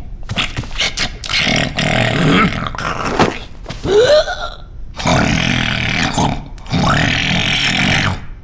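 Cartoon character vocal noises: several raspy, burp-like grunting bursts, each a second or so long, with a short upward squeak about four seconds in.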